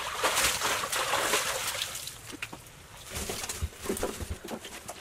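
Water splashing and sloshing in a small pool, dying down about two seconds in, then a few soft low thuds.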